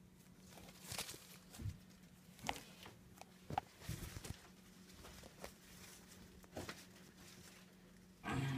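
Faint steady hum of a reptile-enclosure fogger, broken by a dozen scattered light knocks and rustles from the phone being moved about the enclosure, the loudest knock near the end.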